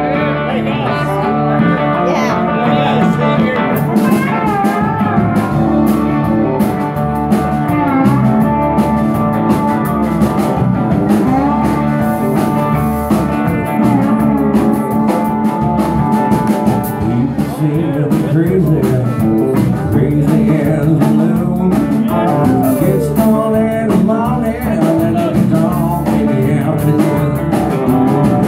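Live band playing: two electric guitars over bass guitar and a drum kit, with bending guitar lines on top.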